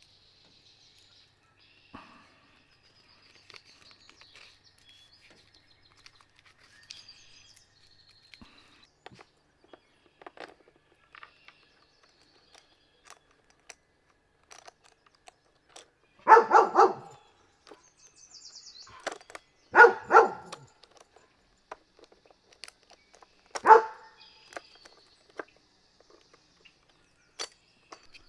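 A dog barks three times a few seconds apart in the second half, the first two each a quick double bark. Between them come faint light clicks of a saw chain being handled and fitted onto the bar.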